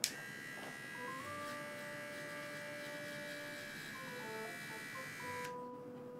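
Small battery-powered pet paw trimmer clicked on and running with a steady high buzz as it shaves the fur on a kitten's paw pads. It cuts off suddenly about five and a half seconds in.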